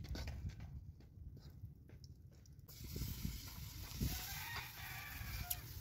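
A rooster crowing, one drawn-out call in the second half.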